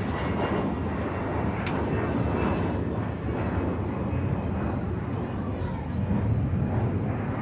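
Jet airliner climbing out overhead, a steady broad rumble with a faint high whine. There is a single sharp click about two seconds in.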